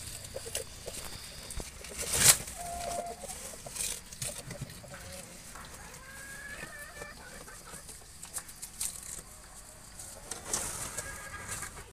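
Chickens clucking, a few short calls spread through, with one sharp knock about two seconds in.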